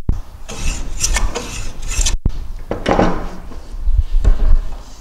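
Metal bench plane shaving a wooden board in a few rasping strokes: finishing strokes to bring the edge true and square. Near the end come a few knocks of wood and tool on the bench.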